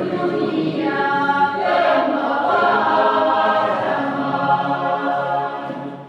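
Congregational choir singing together in held, sustained notes, the phrase tailing off at the very end.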